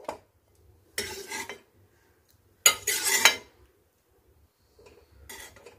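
Steel spatula scraping the sautéed onion-tomato mixture out of a steel kadai and knocking against the rim of a steel mixer-grinder jar as the food is dropped in. Three bursts of metal scraping and clinking: one about a second in, a sharper one near three seconds, and a fainter one near the end.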